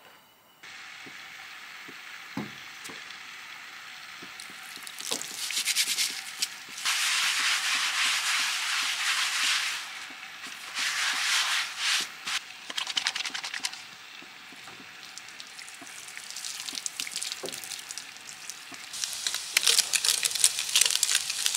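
Chicken thighs frying in a pan: a steady sizzle that starts abruptly just under a second in and swells louder several times, with light scrapes and taps of a utensil.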